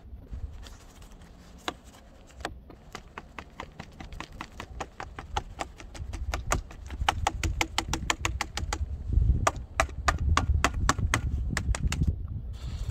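The plastic sawdust canister of a Craftsman 20V cordless palm sander being tapped and shaken to knock the sanding dust out: a quick, irregular run of sharp clicks and taps that grows busier a few seconds in, over a low rumble.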